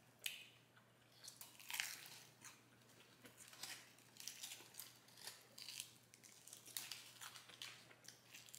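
Faint close-up eating sounds of a person pulling apart, biting into and chewing bone-in fried chicken wings: a string of short crunches and wet smacks scattered throughout, the sharpest just after the start and near two seconds in.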